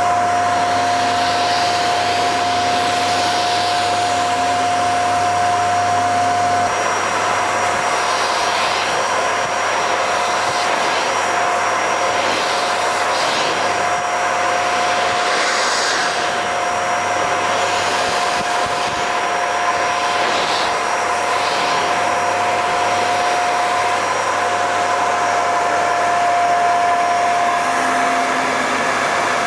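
Hoover Xarion bagless cyclonic canister vacuum cleaner running on carpet, a steady high motor whine with repeated surges of rushing air as the head works the carpet.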